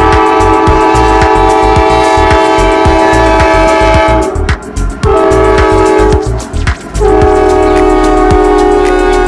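Norfolk Southern diesel locomotive's multi-chime air horn sounding a chord in blasts as the freight passes close by: a long blast that ends about four seconds in, a short blast, then another long blast starting about seven seconds in. Underneath is the low rumble of the locomotive's diesel engine and clicking wheels on the rails.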